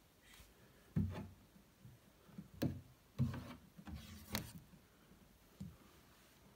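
Kittens playing against a wooden cabinet: a handful of irregular soft knocks and thumps as they paw and bump the furniture, with no meowing.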